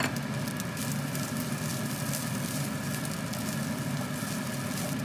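Fried rice sizzling and crackling in a nonstick frying pan as a wooden spatula stirs and turns it, over a steady low hum.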